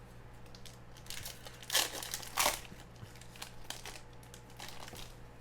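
A plastic trading card pack wrapper being torn open and crinkled, with two louder rips close together about two seconds in.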